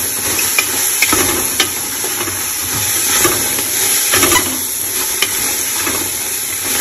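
Sliced white onions sizzling in a stainless steel pot with no oil, stirred with a wooden spoon that scrapes and knocks against the pot now and then.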